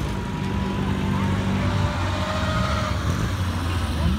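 Small classic car engine running at low revs as the car rolls slowly past, a steady low engine note.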